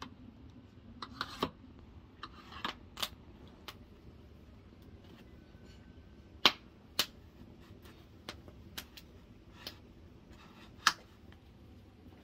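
Kitchen knife slicing through eggplant and knocking on a wooden cutting board, with slices set down on the board: scattered sharp clicks and short scraping cuts, three knocks much louder than the rest, two of them half a second apart midway and one near the end.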